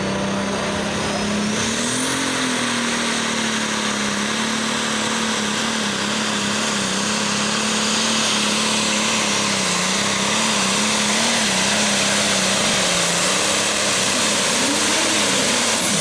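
John Deere 4440 pro stock pulling tractor's turbocharged diesel engine running flat out under load as it drags the weight-transfer sled. A very high turbo whistle climbs about two seconds in and then holds over the steady engine note.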